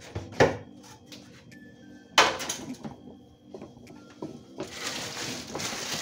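Items knocking as a refrigerator is cleared out: two sharp knocks, about half a second and two seconds in, with smaller clinks between. From about four and a half seconds in, plastic crinkles as it is handled.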